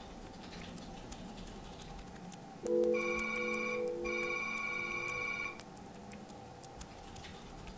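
Faint, irregular tapping of laptop keys. About three seconds in, a sustained chord of steady electronic tones comes in, breaks off for a moment, resumes and then stops.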